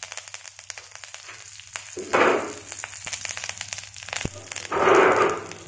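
Mustard seeds and curry leaves sizzling in hot oil in a kadhai for a tadka. Many small sharp crackling pops run throughout, with two louder hissing surges, one about two seconds in and one near the end.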